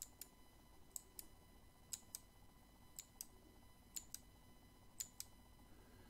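A loose Kailh Box Pink clicky mechanical keyboard switch pressed by hand six times, about once a second. Each press gives a sharp double click, one on the way down and one on the way back up, about a fifth of a second apart.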